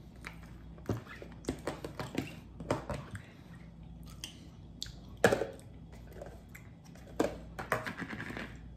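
A man chewing and eating with wet mouth sounds, with a spoon clicking and scraping against a plastic takeout bowl; irregular short clicks and smacks, the sharpest about five seconds in.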